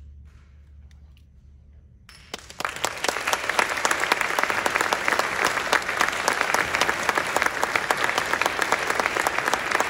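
A concert audience applauding. A hush of about two seconds, then the clapping breaks out suddenly and keeps on, thick and steady.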